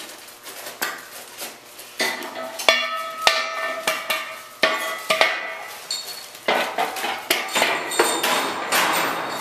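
Steel tubing of an engine hoist clanking and scraping as its legs are slid into the base, with several sharp metal knocks that ring on briefly.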